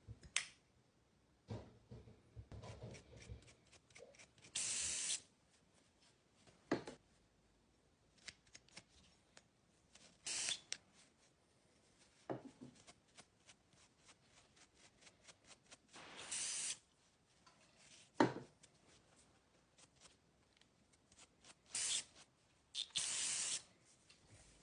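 Hands working on a Babyliss hair clipper's small plastic and metal parts: scattered sharp clicks and taps, with five short hissing spray bursts of about half a second to a second each.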